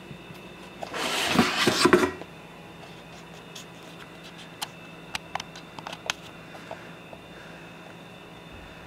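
Camera handling noise: a loud rustle, with a couple of dull knocks, about a second in as the camera is picked up and moved. Then scattered faint clicks and taps over a faint steady hum.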